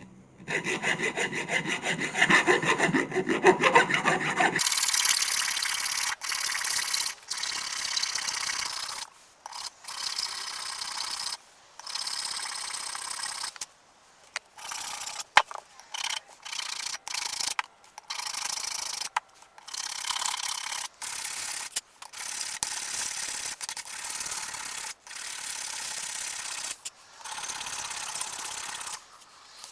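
Hand file rasping back and forth over a cast-metal G clamp, filing down the casting lines. It comes in a string of short passages that break off abruptly, and the first few seconds are fuller and lower in pitch than the rest.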